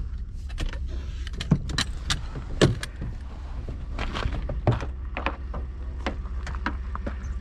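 A series of sharp clicks and knocks as gear is handled and a pickup truck's door is opened, over a steady low hum.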